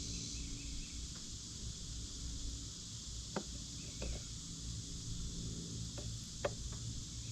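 Insects chirring steadily over a low, even hum, with a few light clicks and knocks about halfway through and near the end.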